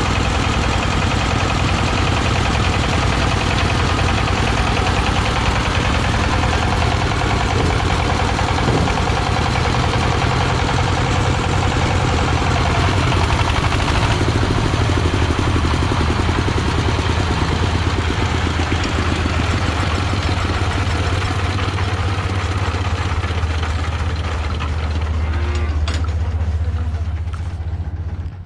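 Engine of a mobile rice threshing machine running steadily, with a strong low hum under a rough mechanical noise; the sound dies away near the end.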